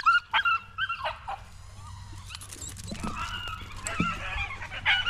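Several beagles yelping and whining, straining eagerly on their leashes. A quick run of short high yelps comes first, then after a lull longer wavering whines start about three seconds in.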